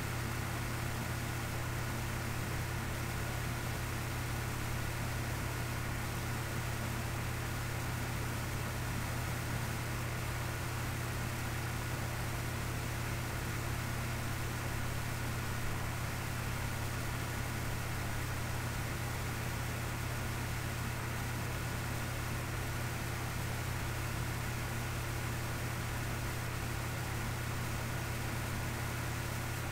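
Steady low hum under an even hiss, with no other sound: a constant background noise floor.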